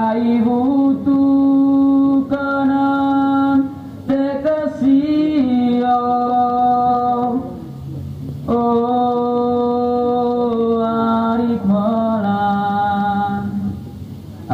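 A solo voice singing slow phrases of long, held notes, breaking off briefly about halfway through and again just before the end.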